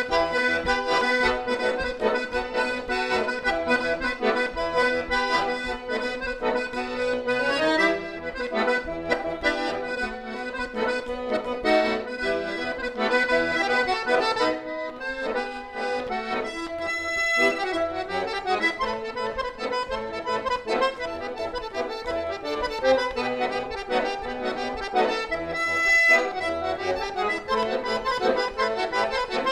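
Solo button accordion playing a chamamé: a melody over chords and bass notes, with a couple of very brief breaks a little past halfway.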